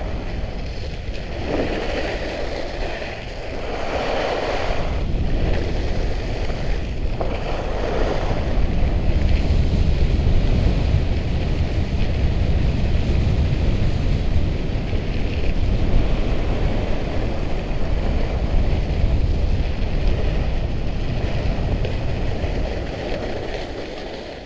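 Wind rushing over the microphone and the Skki's ski blades hissing over snow during a fast downhill run, easing off over the last couple of seconds as the ride slows.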